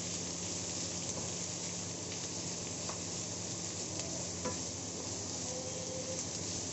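Vegetables sizzling steadily as they stir-fry in hot oil in a stainless steel kadhai, with a wooden spatula scraping through them and tapping the pan a few times.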